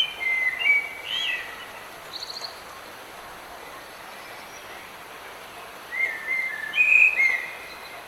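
A songbird singing two short whistled phrases about six seconds apart, with a brief high trill between them, over the steady hiss of rain.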